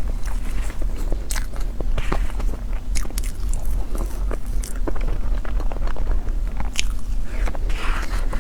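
A person biting and chewing food close to the microphone, with many irregular sharp clicks.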